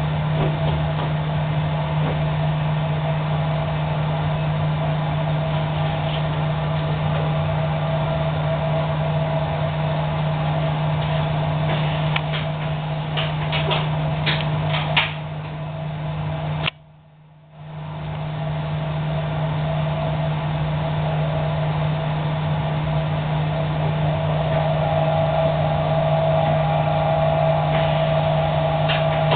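High-frequency plastics welding machine running with a steady low hum and a higher steady whine. Several clicks come just before the sound cuts out briefly about halfway through, and then it builds back up.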